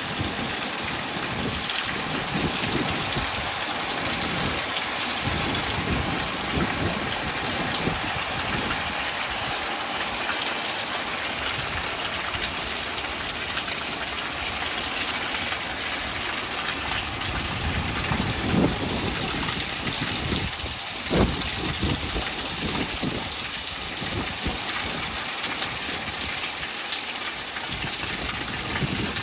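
Heavy thunderstorm rain pouring down steadily, with gusts of wind rumbling on the microphone. Two brief louder knocks stand out about two-thirds of the way through.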